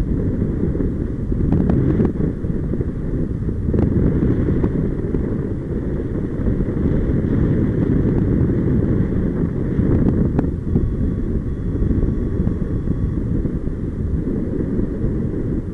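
Wind buffeting the microphone of a camera on a paraglider in flight: a steady low rumble of airflow, with a few light clicks.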